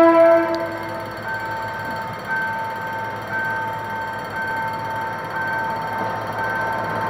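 GM GT22CW-2 diesel locomotive's horn sounding and cutting off about a second in. After it, a level-crossing warning alarm rings in a steady on-off pattern about once a second, over the locomotive's diesel engine running as it approaches with its passenger train.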